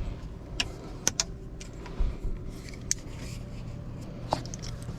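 Scattered clicks and light knocks of small objects being handled, over a steady low hum.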